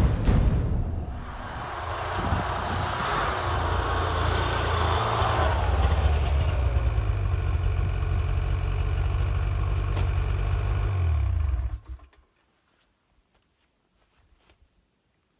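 Snowmobile engine running steadily, with a deep low drone. It cuts off suddenly about twelve seconds in.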